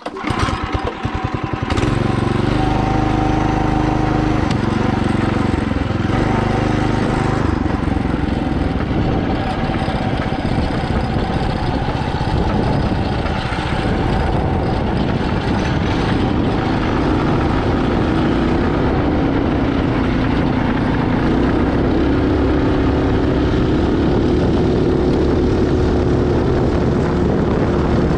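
Mini bike's small engine, driving through a torque converter, running steadily under throttle while being ridden; its pitch shifts up and down as the throttle changes.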